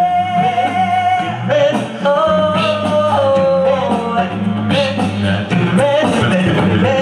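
Male a cappella group singing in harmony over a sung bass line, amplified through stage microphones.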